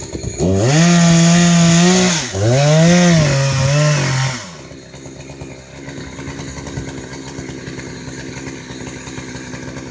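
Two-stroke chainsaw engine revved high, dipping and rising in pitch twice, then dropping back to a quieter, steady idle about four seconds in.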